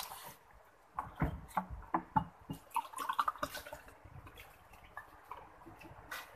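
Water poured from a plastic bottle into glass tumblers, among scattered small clicks and taps.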